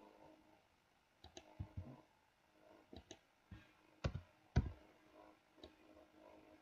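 Faint, irregular clicks of a computer mouse and keyboard, about eight in all, a few of them with a duller knock.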